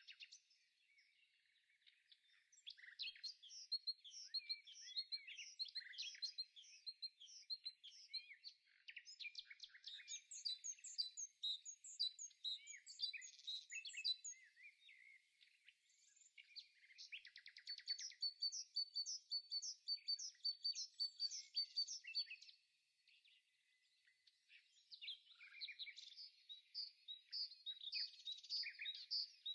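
Songbirds chirping and trilling in a busy chorus of quick, high notes, with two short lulls, near the start and about three quarters of the way through.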